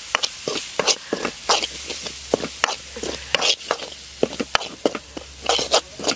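A steel ladle stirring frying onion-tomato masala in a large metal pot: quick, irregular scrapes and knocks of the ladle against the pot, about two to three a second, over a steady sizzle.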